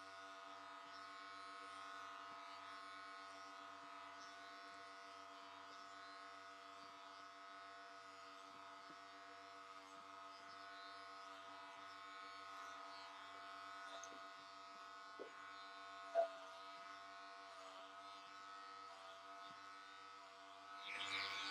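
Electric hair clippers running with a steady hum while buzzing short hair, with a single sharp knock about sixteen seconds in.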